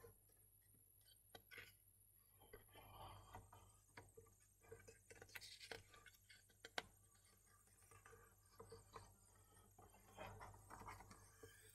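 Faint rustling and handling of a picture book's paper pages as they are turned, with scattered soft clicks and one sharper click a little past the middle.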